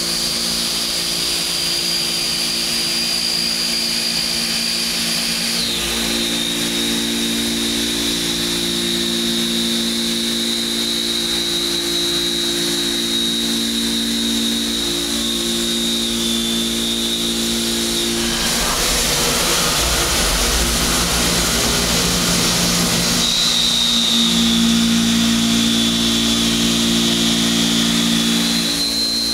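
CNC milling machine taking heavy cuts in metal with an end mill: a steady high whine over several steady lower cutting tones as the cutter chews out chips. The pitch steps down about six seconds in. A rougher, noisier cut runs from about 18 to 23 seconds in before the steady tones return.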